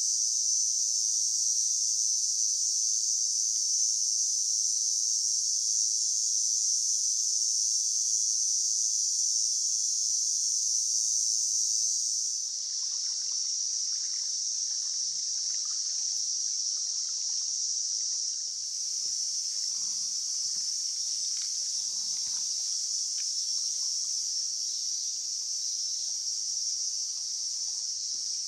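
A steady, high-pitched chorus of insects. About twelve seconds in, the trickle of a shallow stream comes in beneath it.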